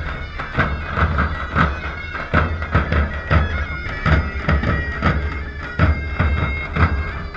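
Traditional Balkan folk music: a loud reed wind instrument plays a held, wailing melody over the regular beats of a large bass drum.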